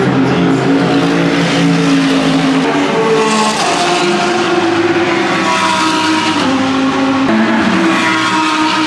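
Loud GT race car engines running hard on the circuit, several overlapping, their pitch stepping up and down as they pass and change gear.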